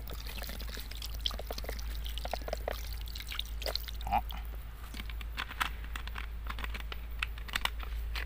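Bottled mineral water pouring from a bottle into a cooking pot, with small splashes and brief glugs.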